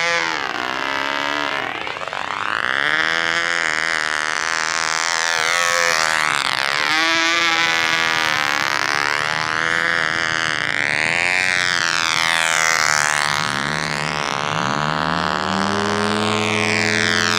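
McCoy .29 Red Head two-stroke glow engine on a control-line Ringmaster model plane running flat out in flight, its buzzing pitch sweeping up and down over and over as the plane circles and maneuvers. Near the end the pitch sags lower and climbs back.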